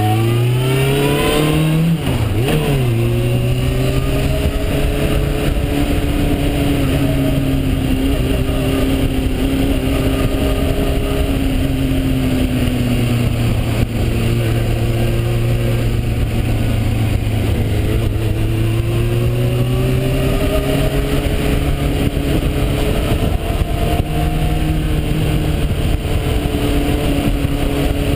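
Suzuki GSX-R750 motorcycle's inline-four engine heard from the bike itself, revving up for the first two seconds, then a gear change, then cruising steadily. The engine note eases down for a while and climbs again later, with steady wind rush over the microphone.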